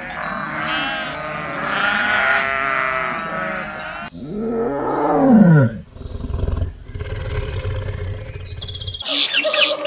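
Goats bleating, many calls overlapping, for about four seconds. Then a tiger gives one loud roar that falls in pitch, followed by a low rumbling growl. High, quick chirping calls start near the end.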